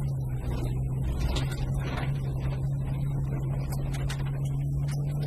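VW Golf rally car's engine pulling hard at steady high revs on a gravel stage, dipping briefly in pitch near the start and then holding, over road noise, with scattered sharp ticks of stones striking the car.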